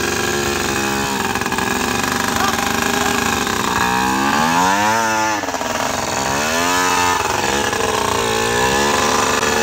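Dirt bike engine revving hard in repeated surges, its pitch climbing and dropping several times as it labours under load up a steep, rutted dirt climb.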